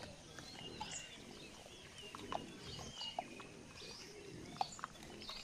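Faint bird chirps and calls over quiet outdoor ambience, with a few soft scattered clicks.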